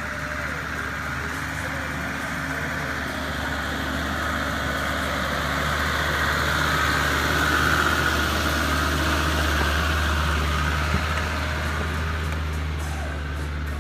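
Land Rover Defender 110 engine running at low revs as the vehicle crawls along an off-road forest track, a steady low drone that swells as it passes close about halfway through, then eases off.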